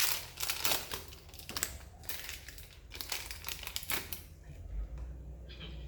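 Plastic packaging crinkling and rustling as it is handled, in quick irregular crackles that thin out after about four seconds.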